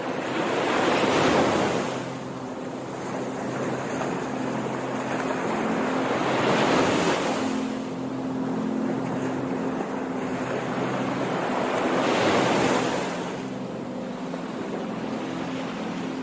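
Ocean waves washing in, three swells rising and falling about five and a half seconds apart, with a faint steady low tone beneath them.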